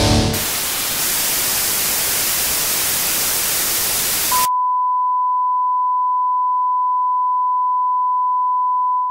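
Static-like white-noise hiss for about four seconds, cut off abruptly by a steady, single-pitched test-tone beep held for about five seconds, as a noise segment between songs.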